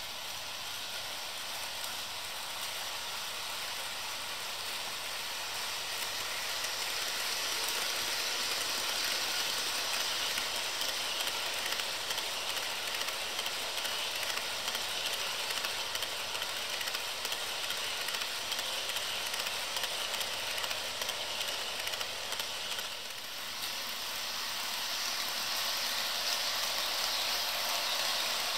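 HO scale model freight train rolling past close by: the steady hissing rattle of its small metal wheels on the track as a long string of auto-rack cars goes by. The sound dips briefly about three-quarters of the way through, then picks up again.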